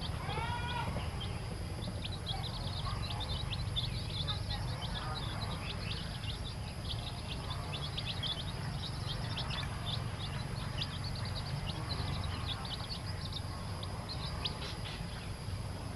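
Newly hatched chicks peeping continuously: many short, high, downward-sliding cheeps overlapping, with one louder call from a chick close by about half a second in. A steady low hum runs underneath.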